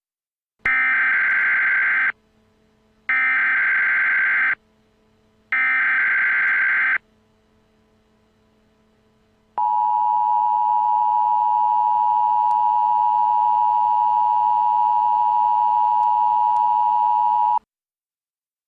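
Emergency Alert System header: three bursts of digital data tones about a second apart, followed by the EAS two-tone attention signal, held steady for about eight seconds before it cuts off. It marks the start of an emergency alert broadcast.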